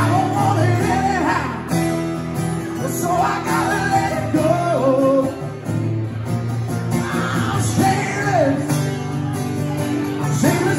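A live band playing a song: men singing, with strummed acoustic guitars and a hollow-body electric guitar.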